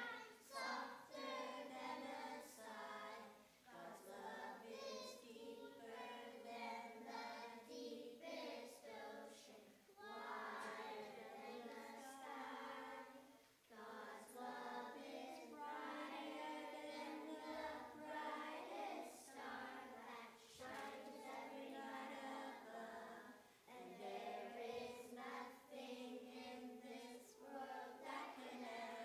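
A children's choir singing a song together in sung phrases, with short breaths between lines.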